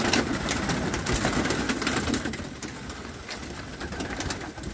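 Racing pigeons cooing, with scattered short clicks and rustles among them.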